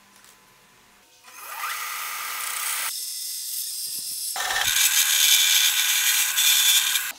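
Band saw running and cutting through a wooden board, a loud steady hissing rasp. It changes abruptly twice where clips are joined, and cuts off suddenly near the end.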